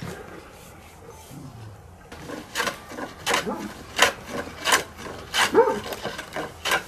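Repeated strokes of a hand woodworking tool on wood, about one and a half strokes a second, starting a couple of seconds in.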